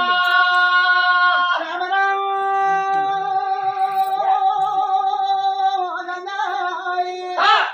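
A singer's voice holding long, drawn-out notes in a folk recitation, with a short break about a second and a half in before another long held note that cuts off suddenly at the end.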